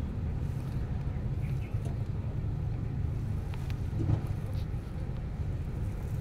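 Steady low background rumble, with a few faint clicks about three and a half to four seconds in.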